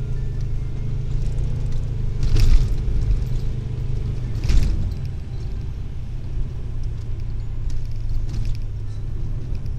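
Subaru driving on a gravel road, heard from inside the cabin: a steady low rumble of engine and tyres on gravel, with two sharp knocks, about two and a half and four and a half seconds in, as the car jolts over the rough surface.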